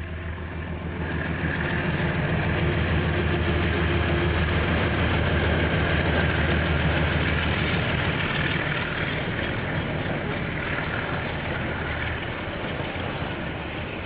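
Diesel-electric freight locomotive passing with its engine running, a steady low drone that eases a little after about eight seconds.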